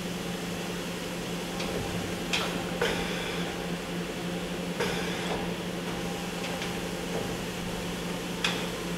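Kia HC800 horizontal machining center's automatic tool changer swapping a 50-taper tool in the spindle, over the machine's steady hum. It gives a handful of sharp clunks, a couple with a short hiss, as the arm grips, pulls and seats the tools.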